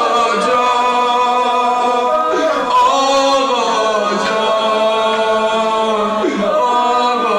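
A man chanting a Shia mourning lament (noha) without instruments, in long held notes that bend up and down.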